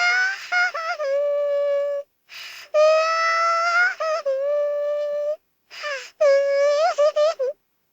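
AI-generated cartoon girl's voice crying in long, high-pitched wails, three of them, with short sobs and catches of breath between. It stops about half a second before the end.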